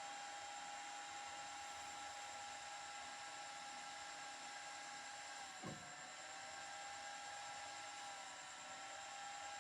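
CNC plasma cutter running, a steady whine over a hiss. The whine dips briefly in pitch about halfway through, with a single click at the same moment.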